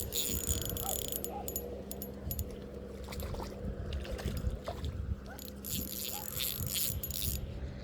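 Spinning fishing reel clicking and whirring in spells while a hooked, running fish is fought in, over a low rumble of wind or water.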